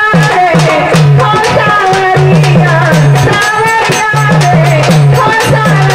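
Live Marathi gondhal folk music: a voice singing over a fast drum and percussion rhythm, with a repeating low note pattern underneath.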